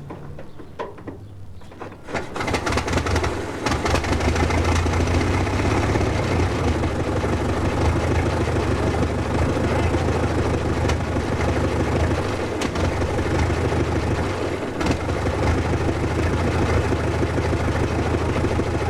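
Ford Model T four-cylinder engine being started: a few clicks and knocks, then about two seconds in it catches and settles into a loud, steady run, faltering briefly twice later on.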